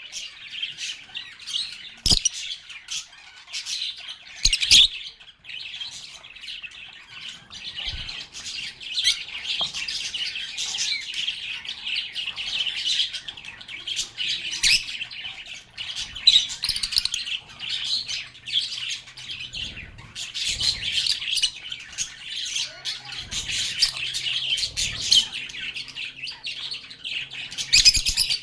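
Several lovebirds chirping and chattering without pause in high, rapid calls, with a few sharp clicks, the loudest about two and four and a half seconds in.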